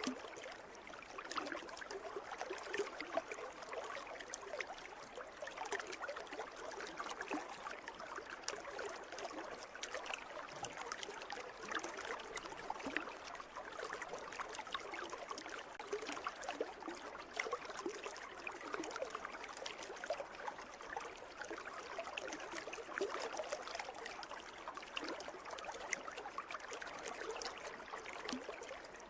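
Water trickling and babbling into a pool: a steady, even run of small drops and gurgles with no pauses.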